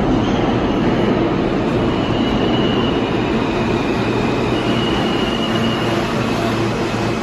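R160 subway train pulling into an underground station: a steady, loud rumble of wheels on rail. A faint high squeal comes in twice, and a low hum grows near the end as the cars run past.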